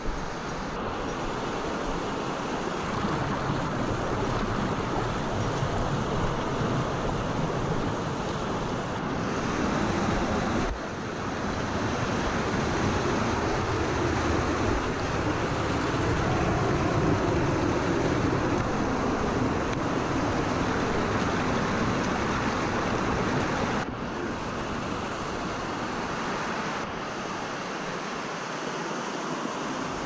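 Steady rushing of mountain stream water, with the level jumping up or down abruptly a few times.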